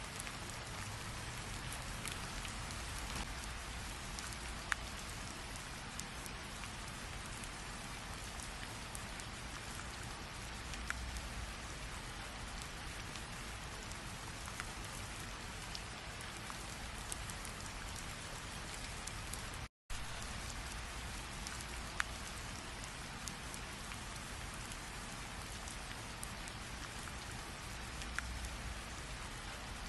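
Steady rain falling on a surface, an even hiss with individual drops ticking here and there. It drops out to silence for a split second about two-thirds of the way through, then carries on unchanged.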